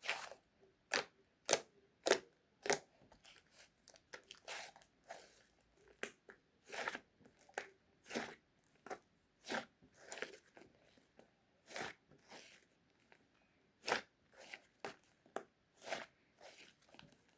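Crisp crunching sounds at an irregular pace, roughly one to two sharp crunches a second.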